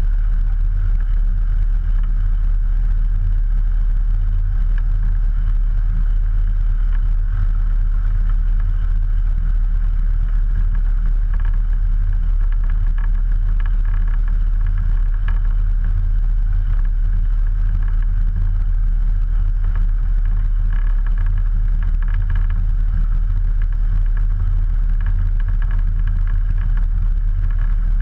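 Ikarus C42 ultralight's 100 hp Rotax 912 flat-four engine and propeller running steadily on the ground, holding one even note with no change in throttle.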